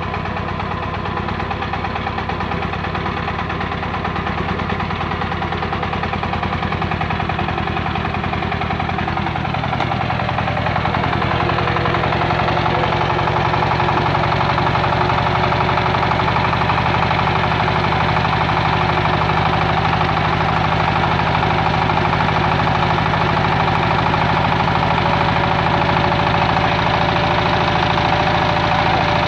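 Generator set's engine running steadily, its speed and loudness rising about ten seconds in and then holding, as its output is checked on a voltmeter reading about 229 volts.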